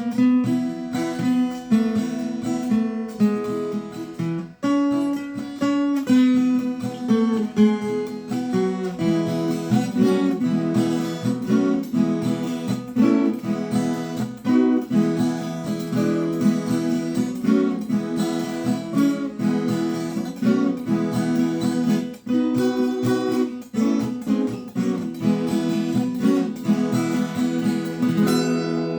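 Viola caipira, the Brazilian ten-string folk guitar, strummed and plucked in a carnival tune with a steady, rhythmic beat.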